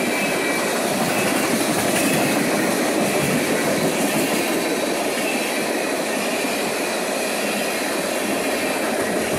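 Freight train cars rolling past with a steady rush of wheel-on-rail noise.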